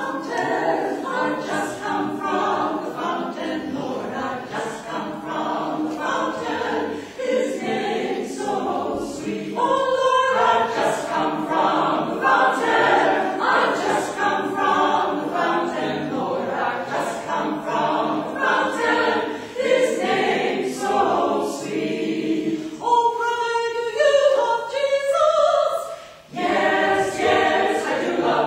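Mixed-voice church choir singing an anthem, the voices thinning to a sparser passage a few seconds before the end, with a brief break before the full choir comes back in.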